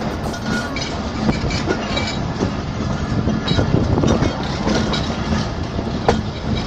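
Pakistan Railways passenger train (Hazara Express) rolling along the track, heard from an open carriage window: steady running noise with the wheels clicking irregularly over the rails.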